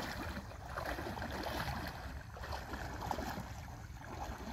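Water sloshing and swishing around a man wading through a fast-flowing river, coming in irregular surges.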